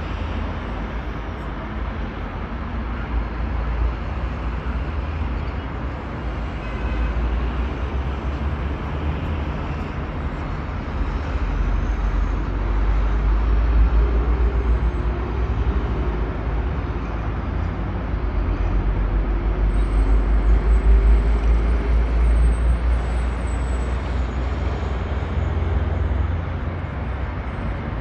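Dense road traffic of cars and heavy trucks on a multi-lane highway interchange, a steady wash of engine and tyre noise over a deep rumble. The rumble swells louder about halfway through and again a few seconds later.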